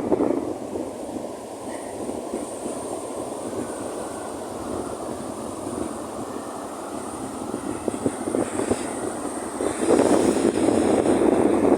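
Strong wind buffeting the microphone on a beach, with the surf blending into a steady rushing noise that swells louder about ten seconds in.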